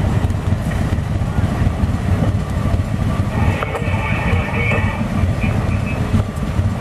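Antique John Deere tractor's two-cylinder engine running at slow parade pace, a steady, low, rapid pulsing.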